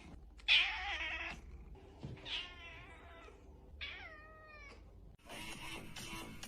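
A domestic cat meowing three times, with short pauses between; the last meow falls in pitch.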